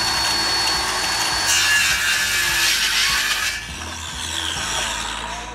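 Ryobi cordless circular saw cutting through a pine board, with a steady high whine at first and a louder, rougher cut from about a second and a half in. The sound drops about three and a half seconds in and fades out near the end.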